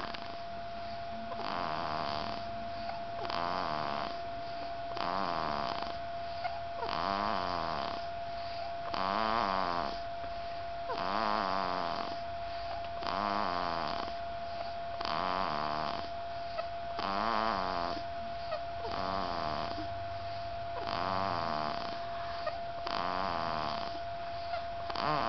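Three-month-old baby snoring in sleep, a rattling snore on each breath, about one every two seconds. A steady faint tone runs underneath.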